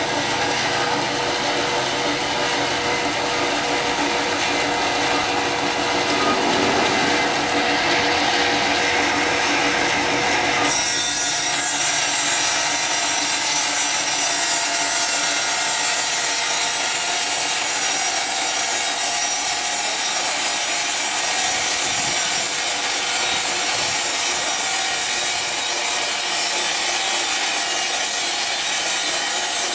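Sawing machine cutting ironwood, a steady grinding rasp of blade through dense hardwood. About eleven seconds in, the sound changes abruptly, becoming brighter, hissier and a little louder as the cut goes on.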